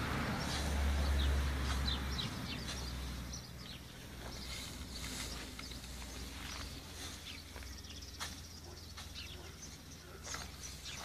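Birds chirping in short, repeated calls over the rustle of freshly cut grass being forked up and dropped onto a wheelbarrow. A low rumble sits under the first couple of seconds.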